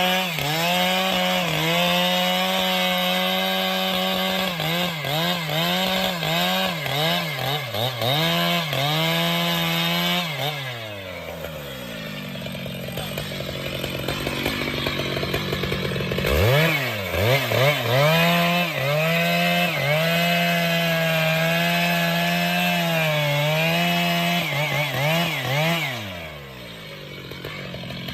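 Chainsaw cutting wood, its engine held at high revs with the pitch dipping repeatedly as the chain works the cut. About ten seconds in it drops back to idle, then revs up and cuts again before easing off near the end.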